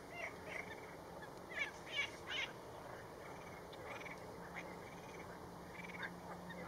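Lakeside wetland ambience: frogs croaking and birds giving short, sharp high calls over a steady low drone, with the loudest cluster of calls about two seconds in.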